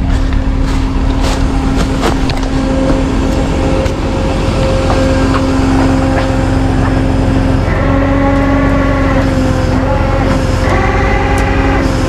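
Heavy vehicle engine running steadily, with a steady whine over it. In the last few seconds, higher wavering tones come and go on top.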